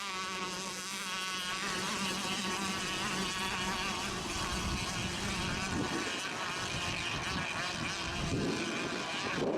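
Several radio-controlled racing boats' small engines buzzing at high revs, their whining pitch wavering up and down as they run the race course.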